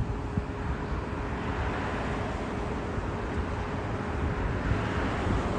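Road traffic noise with a low rumble of wind on the microphone. A passing vehicle's hiss swells and fades through the middle.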